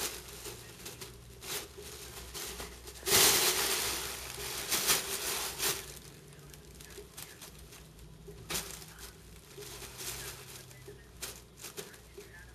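Crinkle tunnel's crackly lining rustling in irregular bursts as cats scramble and wrestle in it. The loudest, longest rustle comes about three seconds in, followed by shorter crackles and scuffs.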